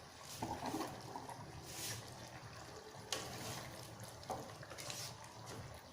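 Fish sauce being poured into a pot of curry, a liquid trickle with several short splashy bursts.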